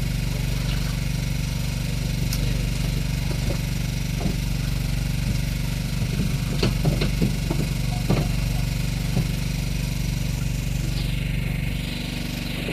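An engine running steadily at idle, a low even hum, with a few light clicks and knocks about six to eight seconds in. The engine gets a little quieter near the end.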